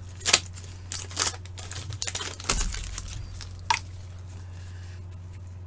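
Shiny foil wrapper of a hockey card pack being torn open and crinkled, a string of sharp crackles that die down after about four seconds.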